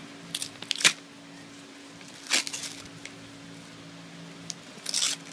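Paper envelope being torn and rustled open by hand in short, sharp rips: the loudest about a second in, another a little past two seconds, and a cluster near the end. A steady low hum runs underneath.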